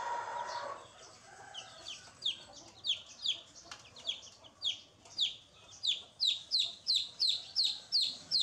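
Chicken chicks peeping: a run of short, high, falling peeps that comes faster and faster, reaching about two a second. A brief voice sounds at the very start.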